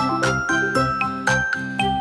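Background music with a steady beat: bright chiming, bell-like notes over a repeating bass.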